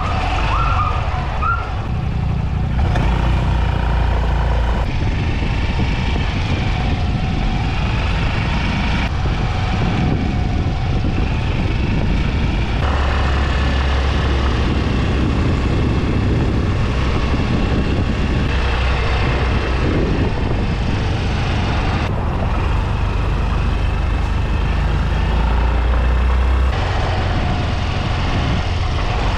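Yamaha Grand Filano scooter being ridden on the road: engine and road noise under heavy wind rumble on the microphone. The rumble jumps abruptly several times.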